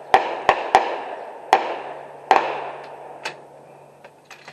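Gunshots on the range: a quick run of three shots in the first second, then two more spaced about a second apart and a weaker one later. Each report rings out with a long echoing tail. A faint steady hum runs underneath.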